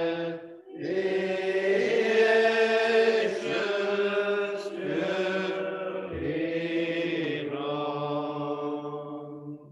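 Unaccompanied singing of a metrical psalm in slow, long-held notes. There is a short break for breath about half a second in, and the singing ends just before the close.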